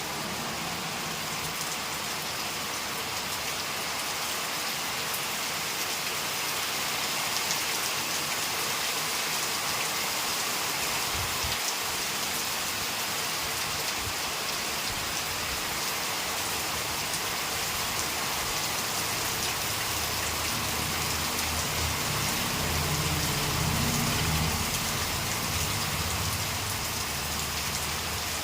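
Steady heavy rain falling on a Premier Padmini car. A low rumble swells and fades about three-quarters of the way through.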